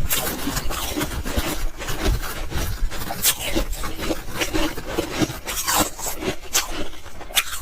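Soft ice and freezer frost crunching as they are chewed: a dense, irregular run of small crackles.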